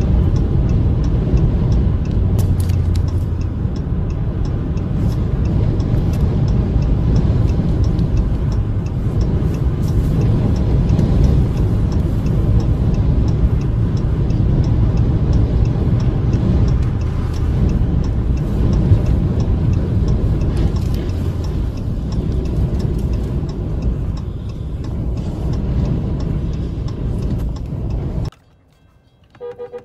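Strong wind buffeting the microphone of a moving vehicle, mixed with road rumble: a loud, steady, deep rumble that cuts off abruptly near the end.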